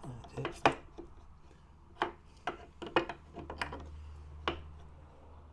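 Small metal clicks and taps as a bolt and its parts are handled and fitted by hand into a 1/6 scale model tank's metal drive case: about eight sharp, irregular clicks, over a faint low hum.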